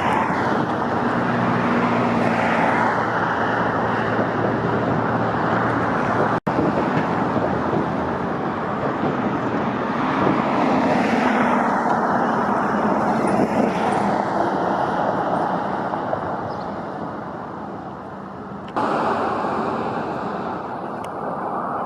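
Road traffic noise: a steady rush of passing cars, broken by a brief dropout about six seconds in and a sudden change in the sound near the end.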